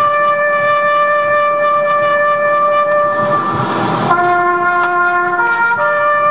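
Slow film-score music: long-held wind-instrument notes sounding together, moving to new notes every second or two. A hissing swell builds about three seconds in and stops short about a second later.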